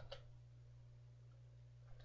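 Near silence with a steady low hum, and a single keyboard click just at the start.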